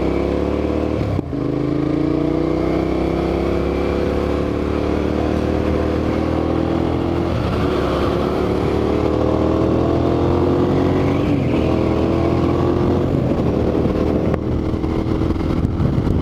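2008 United Motors V2S 650R's V-twin engine pulling hard under acceleration, its pitch climbing steadily, with a quick gear change about a second in. Wind rushes over the helmet microphone.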